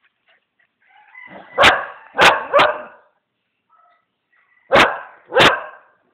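Small dogs barking at each other in a play-fight: a faint growl leads into three sharp barks in quick succession, then, after a pause of about two seconds, two more barks.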